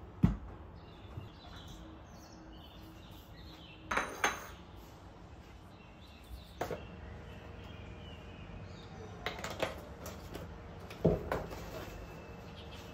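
Dishes and food set down one by one on a kitchen countertop: a series of separate sharp knocks and clinks of a ceramic plate, a wire strainer and a small stainless steel bowl, with the loudest ones near the start and about eleven seconds in.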